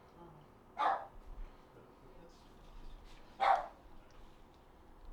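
A dog barking twice, single barks about two and a half seconds apart.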